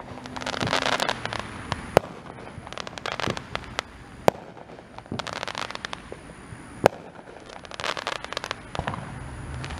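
Fireworks going off: three sharp bangs a couple of seconds apart, with spells of crackling between them.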